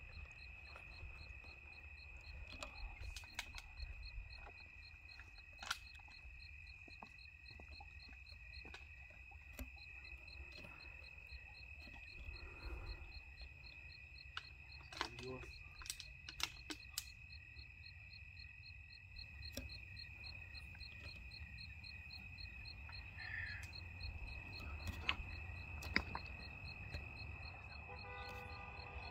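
Night insect chorus: crickets trilling on one steady high note, with a second, higher call pulsing in quick even beats, over a low rumble. Scattered sharp clicks and knocks stand out: one about five seconds in, several around the middle, and a few near the end.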